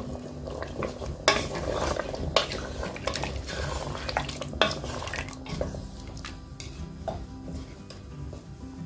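Wooden spoon stirring potato chunks and mutton gravy in a pressure cooker, scraping through the curry with a few sharp knocks against the pot, the loudest about a second, two seconds and four and a half seconds in.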